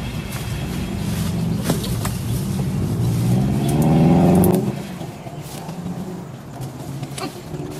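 A motor vehicle's engine, off-camera, rising in pitch and loudness, loudest about four seconds in, then dropping away suddenly. A few light clicks sound over it.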